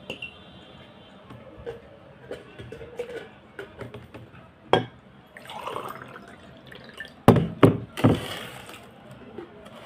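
Eating noodles from a ceramic bowl with a fork: scattered light clicks of the fork on the bowl, a louder knock about five seconds in and three close knocks around seven to eight seconds, with two short wet, rising noises.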